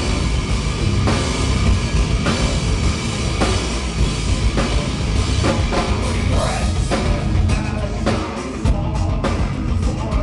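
Live heavy metal band playing loud: distorted guitars and a pounding drum kit with a singer's voice. In the last few seconds the drums break into separate heavy hits.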